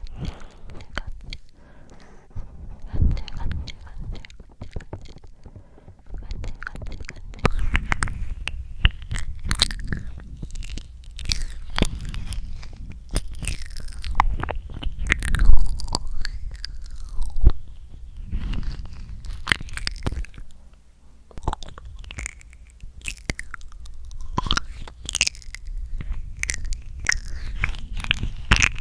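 Close-miked ASMR mouth sounds: irregular runs of wet clicks and smacks.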